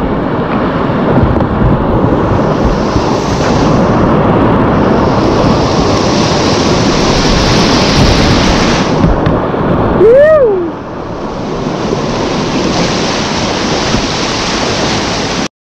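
Rushing whitewater of a creek rapid close by, a loud steady rush. About ten seconds in there is a short rising-and-falling shout. The sound cuts off suddenly near the end.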